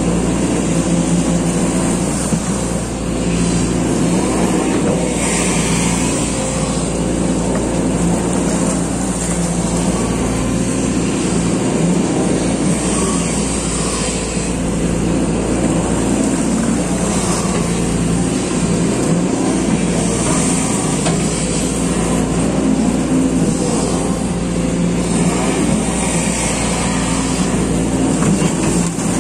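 Sany SY215C hydraulic excavator's diesel engine running steadily, heard from inside the cab, its note shifting a little as the arm and bucket work through mud.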